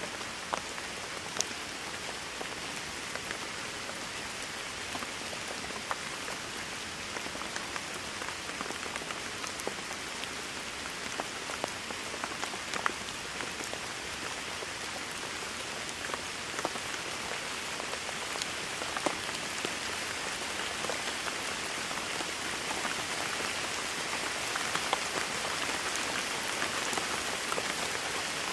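Steady rain falling on a hard surface, a continuous hiss with distinct close drops ticking through it; it grows slightly heavier toward the end.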